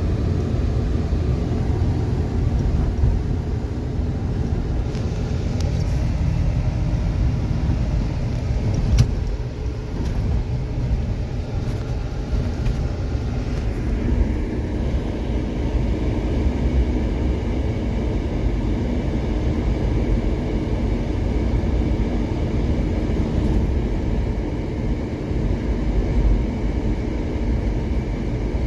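Jeep driving slowly over a snowy dirt trail: steady engine running with tyre and road noise heard from inside the cab, and a single brief knock about nine seconds in.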